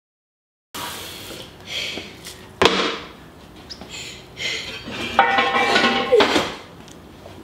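Dishes and kitchenware clattering as they are handled at the sink, with one sharp, loud knock about two and a half seconds in.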